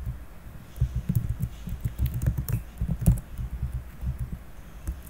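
Typing on a computer keyboard: an irregular run of key presses with short pauses between bursts.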